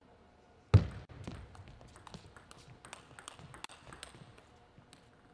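Table tennis rally: a loud thump under a second in, then the celluloid ball clicking back and forth off bats and table until it stops about four seconds in.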